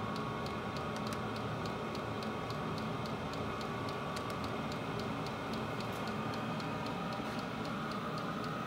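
Vevor 8 kW diesel air heater running at a steady level: a blower rush with the fuel pump's regular clicking, about three clicks a second. The fan's whine rises slightly in pitch near the end as the heat setting is turned up.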